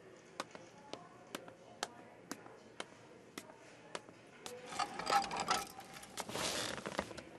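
Light, even clicks about twice a second, then about four and a half seconds in a clatter and rustle of things set down on a desk, followed by more rustling as someone sits into an office chair.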